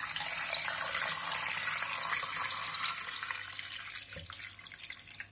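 Water poured from a small saucepan into a stainless steel pot over slabs of pork fatback, splashing steadily; the stream thins and fades away over the last couple of seconds.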